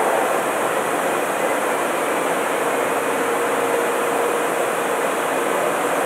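Steady machinery noise on an offshore drilling rig floor, with a faint steady whine through the middle.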